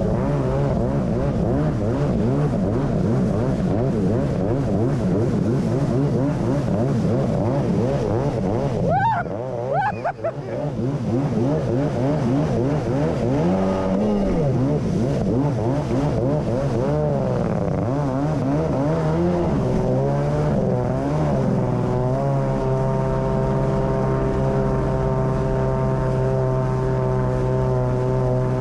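Kawasaki JS550SX stand-up jet ski's two-stroke twin engine, exhaling through a Coffman half-pipe exhaust, running hard under way with its revs wavering up and down. About nine seconds in, the pitch briefly shoots up as the level dips. It then holds a steady high note through the last several seconds.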